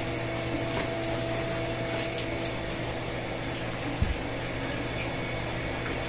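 Steady machine hum of the pump room, with a few light clicks and taps from hands working wiring at a wall-mounted electrical box, and a soft thump about four seconds in.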